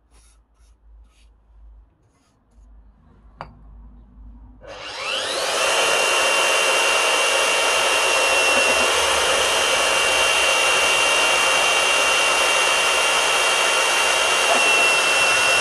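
Fein KBM 50 Auto magnetic drill spinning up with a rising whine about four and a half seconds in, then running steadily as its 30 mm carbide-tipped annular cutter bores into steel plate, a steady high whine over the loud cutting noise. Before it starts there are a few short hisses of cutting-oil spray and a single click.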